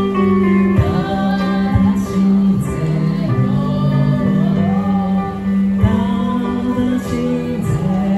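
A man singing a Christian song into a microphone while accompanying himself on an electronic keyboard, both amplified through a small street speaker; the keyboard holds steady chords under the sung melody.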